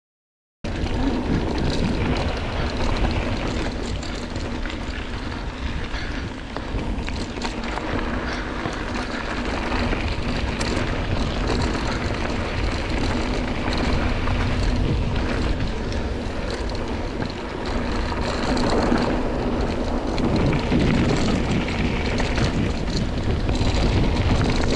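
Wind rushing over a bike-mounted camera microphone and mountain bike tyres rolling over a dirt and gravel trail, a steady rough rumble. The sound cuts in after a brief silence at the very start.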